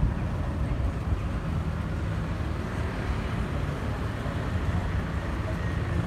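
Steady low rumble of an Airbus A320neo's CFM LEAP-1A turbofan engines as the airliner passes high overhead.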